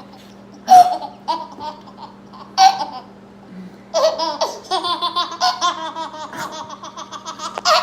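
A baby laughing: two short squealing laughs, then from about four seconds in a long run of quick, rapid-fire laughs.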